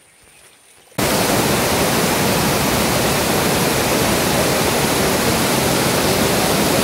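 Waterfall close by, its falling water making a loud, steady, even rush that starts abruptly about a second in, after faint quiet.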